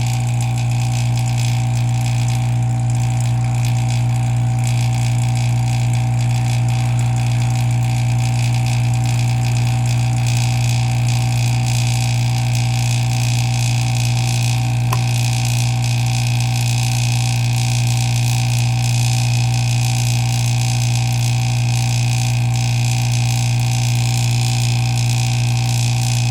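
Oil vacuum pump of a screen-laminating machine running with a steady, loud hum, pulling vacuum while a phone's front glass is laminated.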